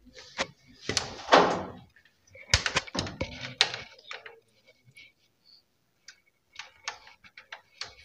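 Knocks, scraping and rustling as a washing machine's plastic control panel and its wiring harness are handled and laid down, in irregular bursts that are loudest in the first four seconds, then a few light clicks near the end.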